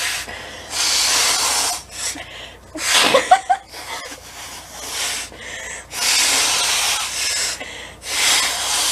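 Two people blowing their noses hard into paper tissues: several long blows with short pauses between them.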